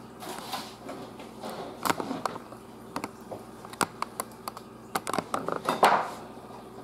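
Scattered light clicks and taps of metal tongs and a knife against a wooden cutting board and a china plate as a grilled filet mignon is sliced and lifted onto the plate, with a louder scrape near the end.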